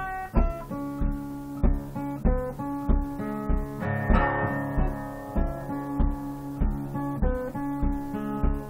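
Acoustic guitar being plucked and strummed in a steady rhythm, with an attack about three times every two seconds and the chords ringing on under each stroke. There is no singing.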